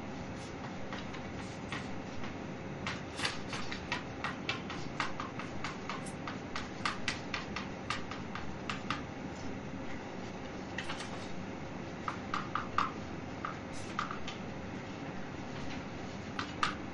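Chalk writing on a chalkboard: quick, irregular taps and scratches in runs, a long run in the first half and shorter ones after a pause, over steady room hiss with a faint hum.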